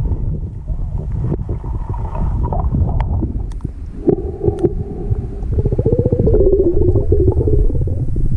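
Underwater sound of a river recorded by a submerged camera: a constant low rumble of moving water, with a few sharp clicks. About four seconds in a pitched humming drone joins, rapidly pulsing and wavering in pitch until the end.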